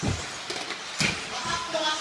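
1/10 electric off-road RC buggies racing on a carpet track: two sharp knocks about a second apart as cars land and hit, then a steady high electric-motor whine near the end.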